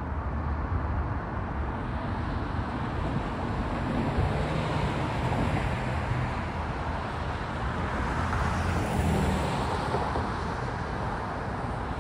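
Steady road traffic at a city intersection, cars driving past, with a louder pass about three-quarters of the way through.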